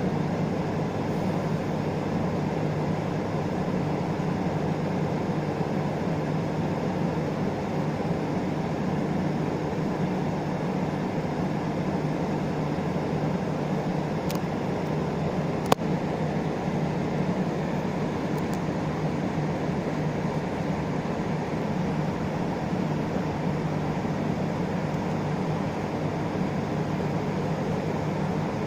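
Interior running sound of an Isuzu Erga LV290 city bus, its four-cylinder turbo diesel and the road noise holding steady, with a single sharp click about halfway through.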